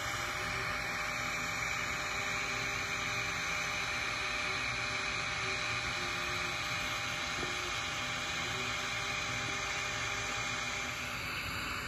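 TIG welding arc running with a steady, even hiss during the fill pass on a 2-inch pipe joint, as the groove is brought up flush before capping.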